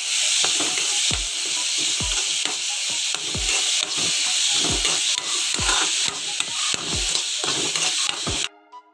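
Green peas, carrot and cabbage sizzling in ghee in an aluminium kadai while being stirred, with the utensil knocking against the pan about once a second. The sound cuts off suddenly near the end.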